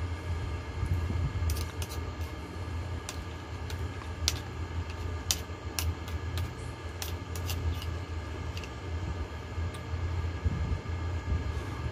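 Sharp, irregular clicks and taps of a person eating soup with a metal spoon, clustered from about a second and a half to ten seconds in, over a steady low hum of an air conditioner running.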